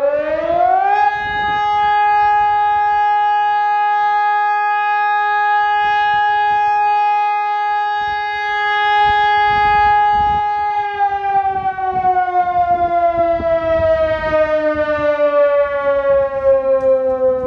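Sonnenburg electronic siren sounding a test alarm. It rises in pitch for about a second, holds one steady tone for about ten seconds, then slides slowly downward.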